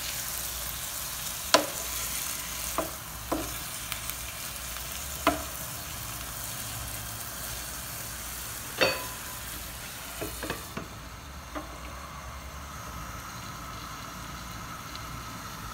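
Chopped tomatoes sizzling in hot oil in a frying pan while a wooden spoon stirs them, knocking against the pan several times. About eleven seconds in a glass lid goes on and the sizzle turns muffled and duller.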